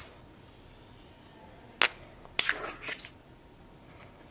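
Hands handling a new smartphone: one sharp click a little under two seconds in, then about half a second later a short crackle of several quick clicks.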